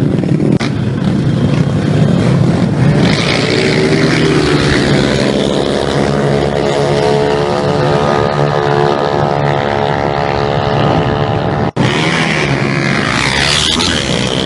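Small motorcycle engines running loud and revving. Through the middle one engine holds a high, slowly rising pitch. The sound cuts out for an instant about three-quarters of the way through.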